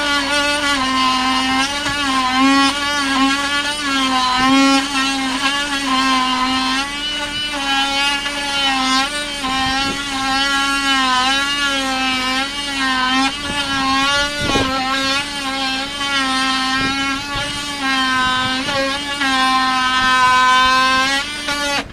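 Handheld power tool running hard against wooden boat hull planking as it cuts into the plank seams. It gives a high, steady whine whose pitch keeps dipping and recovering as the tool is pressed into the wood, and it stops abruptly at the end.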